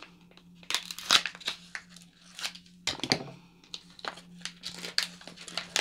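Packaging crinkling and tearing as a pair of tweezers is worked out of its package, in irregular crackles and snaps.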